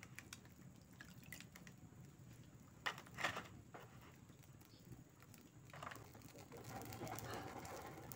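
Faint dripping and light splashing of water as whole fish are lifted out of a basin of thaw water, with two sharp clicks about three seconds in, as a wire grill basket is handled.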